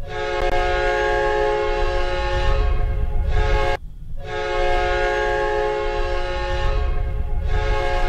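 Ice hockey goal horn blowing two long blasts: the first lasts about four seconds, then after a brief break a second blast starts and is still sounding at the end. A low rumble runs underneath.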